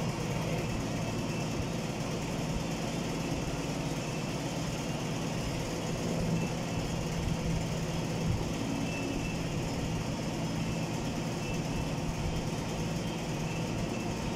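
Steady low mechanical hum of a running motor, with one faint knock about eight seconds in.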